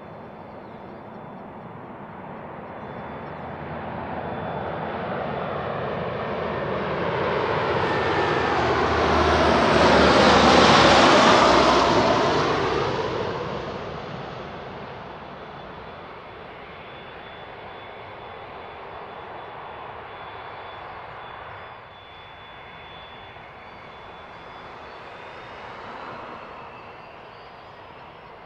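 Cessna 560 Citation V business jet taxiing, its twin Pratt & Whitney Canada JT15D turbofans whining at taxi power. The sound swells to its loudest about ten seconds in and fades back, with a steady high whistle throughout.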